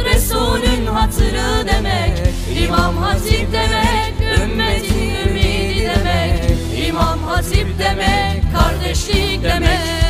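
Background music: a song with sung vocals over a steady beat.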